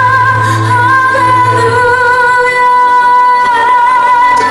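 Female soloist singing a Christmas hymn. She holds one long note with vibrato on a sung "hallelujah" and shifts pitch near the end, over a soft accompaniment whose low bass note fades out about two seconds in.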